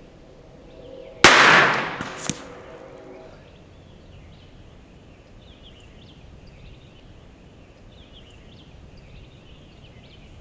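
One shot from a 1935 Smith & Wesson K-22 revolver firing .22 Long Rifle target ammunition, a little over a second in, ringing out over the range. A short, fainter sharp pop follows about a second later.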